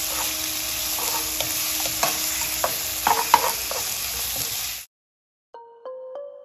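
Shrimp sizzling in hot oil with garlic and ginger in a wok, with sharp stirring strokes against the wok. The sizzle cuts off abruptly, and a few marimba-like notes of music begin near the end.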